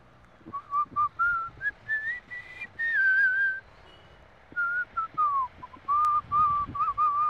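A person whistling a tune. The melody climbs in steps, holds, breaks off briefly, then drops and ends on a run of short wavering notes.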